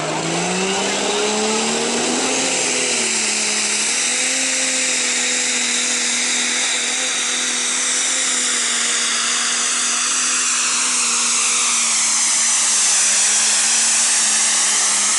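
Diesel pulling tractor at full throttle on a pull. The engine note climbs over the first few seconds as it launches, then holds steady at high revs, with a loud high whistling whine of its turbochargers above it.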